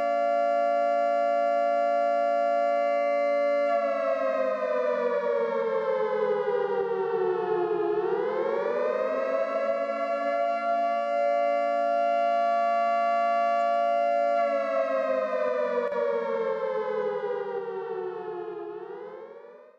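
Air-raid warning siren wailing, a chord of several tones: it holds one pitch, slowly falls over a few seconds, swings back up and holds again, then falls once more, rising briefly before it dies away at the very end.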